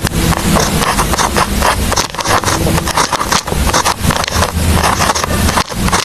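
Pen scratching on paper in quick, irregular strokes while someone writes.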